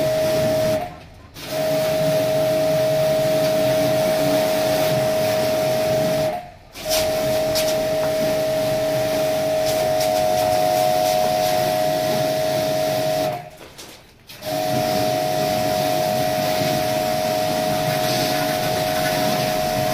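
Electric pressure washer spraying a water jet onto an air conditioner's outdoor condenser unit: a steady hiss with a steady whine from the pump. It cuts out briefly three times, the longest gap about a second long about two-thirds of the way through.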